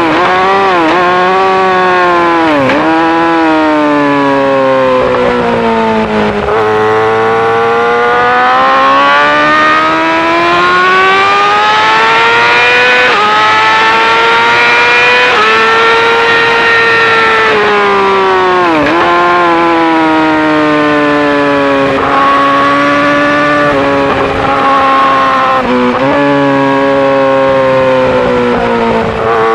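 Yamaha R6's inline-four engine through an Akrapovic full-system exhaust, run hard on track. The revs climb and fall repeatedly, with several sharp dips and quick recoveries, about a second in, near three seconds, near nineteen and near twenty-six seconds, as it changes gear.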